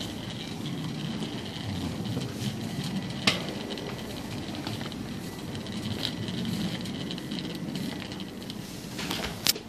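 Wire shopping cart rolling over a tiled supermarket floor, a steady rattle of wheels and basket, with two sharp clacks, one about three seconds in and one near the end.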